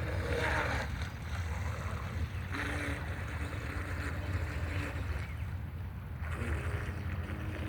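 Fast electric radio-controlled model boats running on the water, their sound swelling and fading three times as they pass, over a steady low rumble of wind on the microphone.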